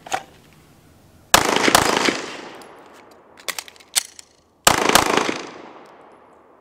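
Two bursts of rapid gunfire, the first about a second and a half in and the second about three seconds later. Each is a quick string of shots followed by a fading echo, and a few sharp clicks fall between them.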